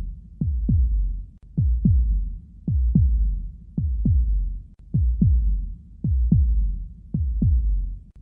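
Heartbeat sound effect: a slow, steady lub-dub, two deep thumps close together about once a second, seven beats in all. Each thump drops quickly in pitch as it fades.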